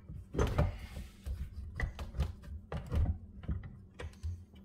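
Irregular metal knocks and clunks as a steel mower lever is handled and repositioned in a bench vise, over a low steady hum. The knocks thin out near the end.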